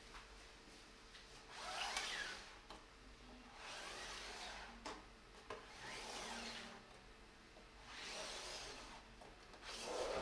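Cardboard box being slid, turned and tilted by hand on a tabletop: several rubbing scrapes of cardboard, each about a second long, with a few light knocks.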